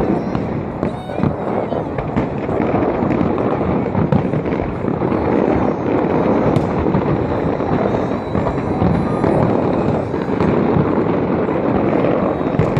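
Fireworks bursting in a dense, continuous barrage, the booms and crackles running together without a break.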